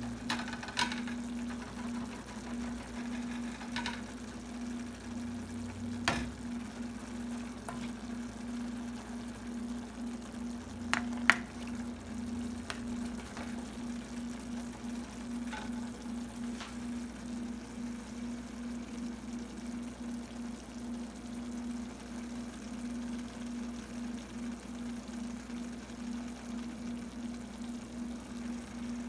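Escabeche sauce with fish and vegetables simmering and bubbling gently in a frying pan, over a steady low hum. A few sharp clicks sound through it, the loudest about eleven seconds in.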